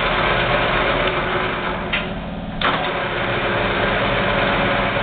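ENCO 13 x 40 geared-head bench lathe running with a steady gear whine while its carriage is driven under power feed. A little after two seconds the sound briefly drops, then a sharp click, and the steady running resumes.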